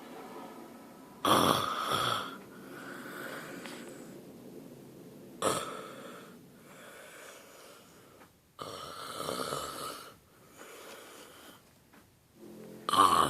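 Snoring: four loud snoring breaths at irregular intervals of about three to four and a half seconds. The third breath is the longest, and the first and last are the loudest.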